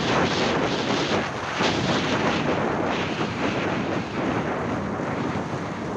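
Wind buffeting the microphone of a phone carried by a skier going downhill, mixed with the hiss and scrape of skis on packed snow, coming in uneven surges.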